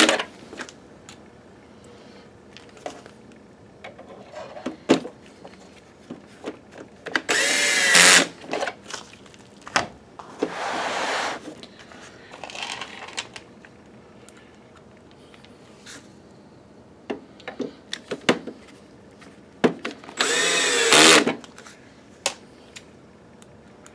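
12-volt cordless drill/driver driving case screws into a projector's plastic housing, running in short bursts of about a second with a whining motor pitch that bends up and down. The loudest bursts come about 7 and 20 seconds in, with a softer run around 10 seconds and small clicks and knocks of handling between.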